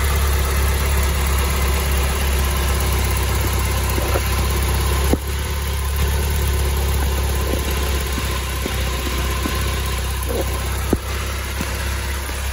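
Peugeot 406 petrol engine idling steadily, heard close up in the engine bay, with two short knocks, one about halfway through and one near the end.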